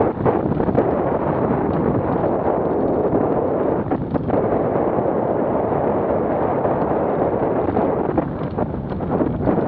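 Wind noise from airflow rushing over the microphone of a camera mounted on a hang glider's wing in flight: a steady, loud rushing with a few brief buffets.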